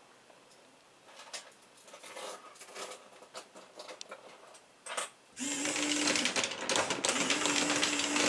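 Scattered light plastic clicks and taps, then about five seconds in a small toy motor starts with a steady hum and a fast mechanical clatter: the HexBug Hexcalator ball-rolling machine running.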